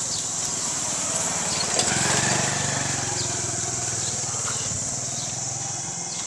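A steady high-pitched chorus of crickets, with a small engine running underneath that grows loudest about two seconds in and then fades a little.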